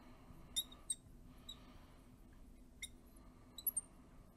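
Marker squeaking faintly on a glass light board in short, scattered strokes as letters are written.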